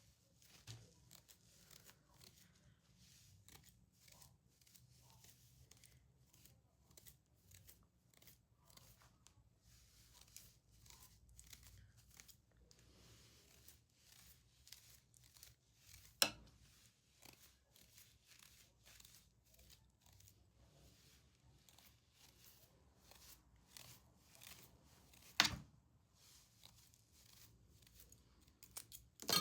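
Thinning scissors snipping through wig hair: a long run of faint, quick snips, with two louder sharp clicks, one about halfway through and one near the end.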